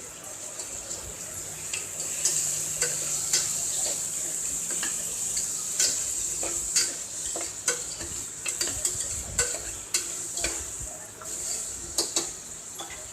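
Chopped vegetables sizzling in oil in a pressure cooker while being stirred, the stirrer scraping and knocking irregularly against the metal pot.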